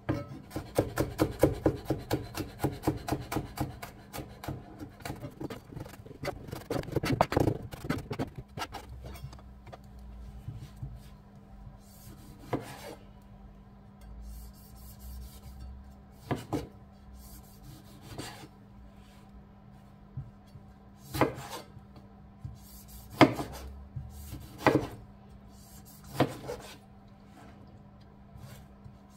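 Rapid rubbing or scraping strokes during kitchen food preparation, about five a second for the first eight seconds. After that come six separate sharp knocks, spaced a second or more apart.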